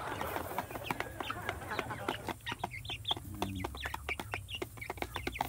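Young Dominant CZ chickens clucking and peeping as they feed, with a quick, irregular tapping of beaks pecking grain from a plastic feeder tray.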